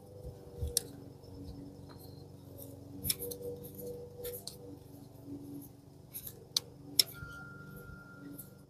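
Faint, scattered small clicks and taps of metal and plastic as a mounting bolt is threaded in by hand to secure an ignition coil, over a faint steady hum.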